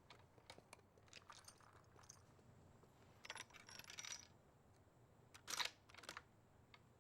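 Near silence with a few faint clicks and two brief soft rustling clatters, about three seconds in and again between five and six seconds.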